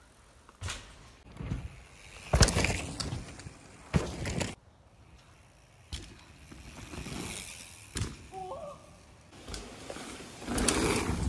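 Mountain bikes on dirt trails: tyre noise that swells and fades as riders pass, with sharp knocks of jump landings, the loudest about two and a half and four seconds in.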